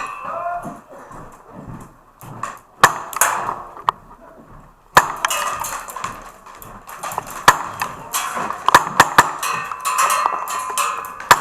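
Sharp, irregular clacks and knocks from an airsoft replica rifle carrying a scope camera, single ones early and quick clusters later.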